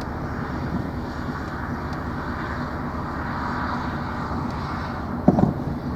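Wind gusting across the microphone, a steady rumbling buffet, with one short knock about five seconds in.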